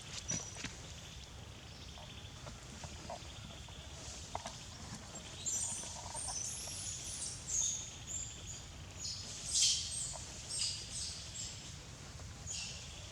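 Animal calls: many short, high-pitched chirps in quick succession, starting about five seconds in, over a steady low rumble.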